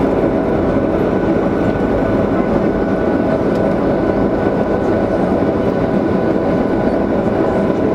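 Boeing 737-800's CFM56-7B jet engines running at taxi power, heard inside the cabin over the wing: a steady rumble with a few steady whining tones on top as the airliner taxis.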